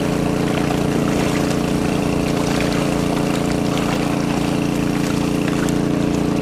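A motor hums steadily with an even low drone, over splashing from farmed fish crowding and breaking the surface in a net cage.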